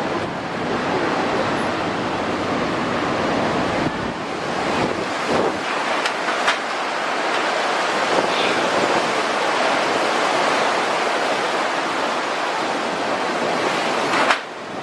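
Hurricane wind blowing hard in a steady rush, buffeting the microphone. The level drops away suddenly near the end.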